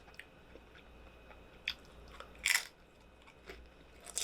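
A person chewing a mouthful of burrito bowl at close range: quiet chewing with a few short, sharp eating sounds, the loudest about two and a half seconds in.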